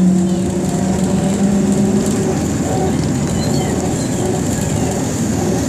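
Belkommunmash BKM-221 trolleybus running, heard from inside. A steady low whine from the drive holds for about two seconds and then fades, leaving the even rumble of the ride.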